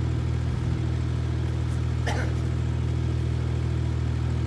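Engine of a piece of lawn-renovation equipment running at a steady speed.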